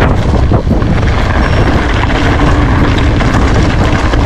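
Mountain bike descending a loose gravel track at speed: wind buffeting the microphone over the steady crunch of tyres on gravel and the rattle of the bike over the stones.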